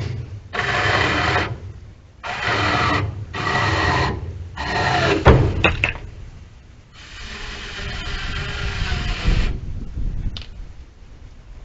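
A handheld power tool running in repeated short bursts of about a second each, then a knock and one longer run of a couple of seconds.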